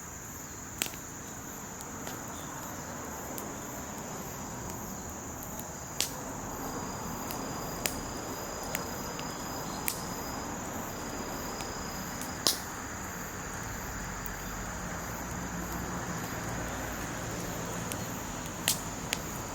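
Wood fire burning with a soft crackle and several sharp, irregular pops of burning wood, the loudest about twelve seconds in. A steady high chirring of insects runs underneath.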